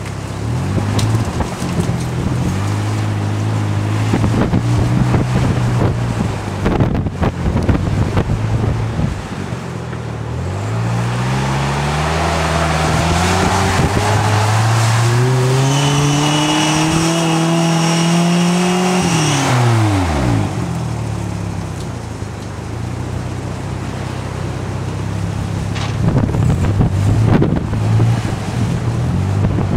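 Off-road vehicle engine running at a steady pace, then revving up with its pitch rising over several seconds and dropping back sharply about two-thirds of the way through, with a high whine at the peak of the rev. Knocks and rattles come through throughout.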